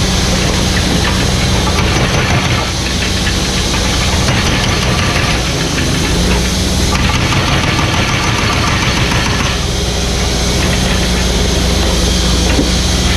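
Mini excavator's diesel engine running steadily, with a hissy noise that comes and goes every few seconds.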